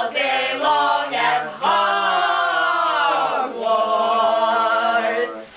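A few voices singing together without instruments: short chanted notes, then two long held notes, the first gliding down in pitch.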